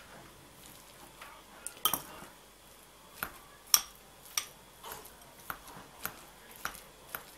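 Metal fork scraping and clinking irregularly against a ceramic bowl while mashing firm homemade cottage cheese, with soft clicks and one sharper clink a little before the middle.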